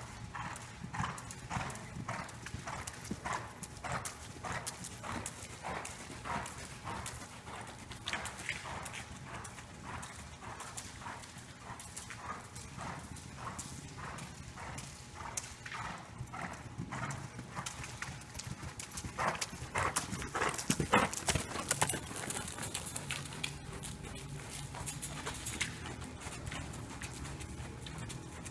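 A ridden horse's hoofbeats on soft indoor arena footing, in an even rhythm a little under two beats a second, with a louder run of beats about two-thirds of the way through.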